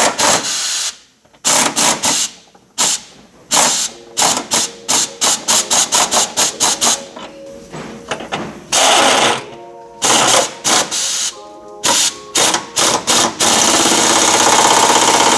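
Impact wrench hammering on the car's rear subframe bolts in many short trigger bursts, with longer runs about nine seconds in and near the end.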